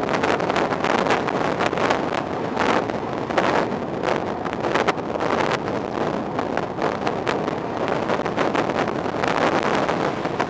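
Wind buffeting the microphone in uneven gusts over the steady road noise of a car driving at speed.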